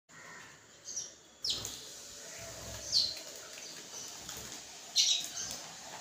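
House sparrows chirping: three loud, short chirps, each falling in pitch, about a second and a half apart, with a fainter one before them.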